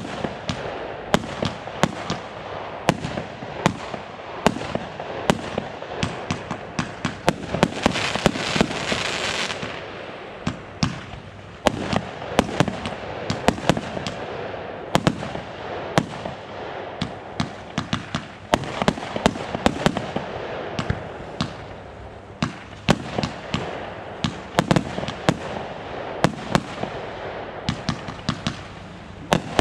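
Consumer fireworks firing: a rapid, uneven run of sharp bangs and crackles, with a louder hissing burst about eight seconds in.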